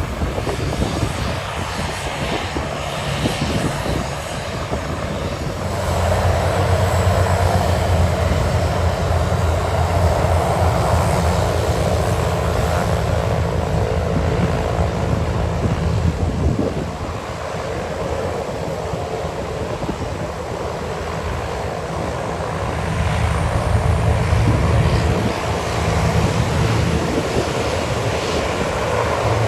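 Propeller airplane engine noise, a steady drone with a low hum that grows louder about six seconds in, eases off around seventeen seconds and swells again a few seconds later.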